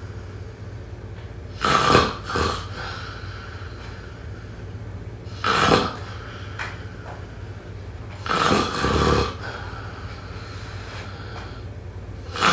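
A person snoring in sleep, a loud snore roughly every three to four seconds, with a steady low hum underneath.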